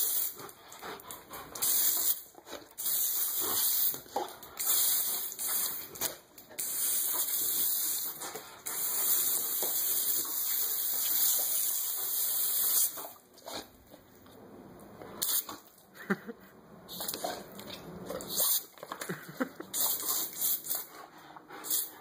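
Garden hose spraying a jet of water onto concrete, its hiss coming and going in long stretches and weaker in the second half. A Rottweiler snaps and bites at the stream.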